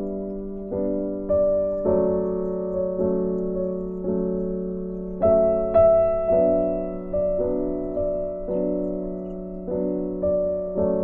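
Background piano music: notes and chords struck at an even, unhurried pace, each one fading before the next.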